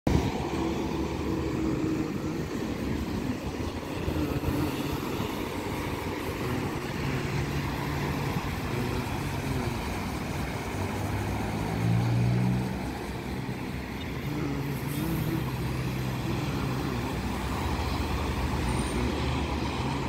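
Road traffic going by: a steady hum of vehicle engines, with one vehicle passing louder about twelve seconds in.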